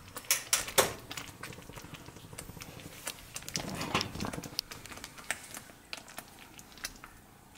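Thick peri peri sauce in a pot, bubbling with irregular clicks and pops, a few louder pops near the start, as it cooks down to a thick paste.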